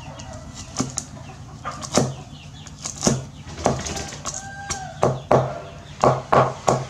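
Steel cleaver chopping garlic cloves on a wooden chopping block: irregular knocks of the blade on the wood, speeding up into a quick run of chops near the end.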